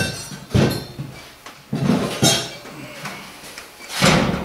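A few separate metallic clinks and knocks, about four in all and spaced irregularly, with the loudest near the end: hard metal objects being handled and set down.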